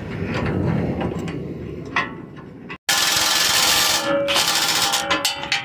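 DeWalt 20V cordless impact driver hammering a bolt down into a steel bumper mounting bracket, starting abruptly about three seconds in and easing off about a second later.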